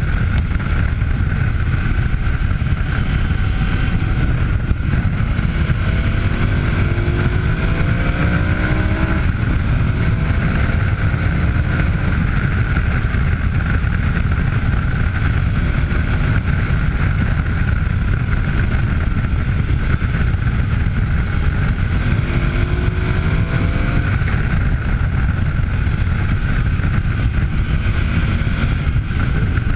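KTM adventure motorcycle's V-twin engine running at road speed under heavy wind buffeting on the microphone. The engine note rises twice as the bike accelerates, about six to nine seconds in and again a little past twenty-two seconds.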